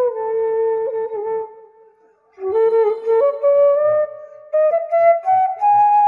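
Bamboo flute (bashi) playing a slow, sad Bangla melody alone. A long held note slides down and fades out, there is a short break about two seconds in, then a new phrase climbs step by step.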